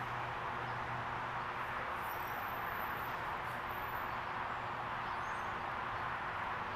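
Steady outdoor background noise, an even hiss with a faint low hum, with a few faint high chirps in the middle.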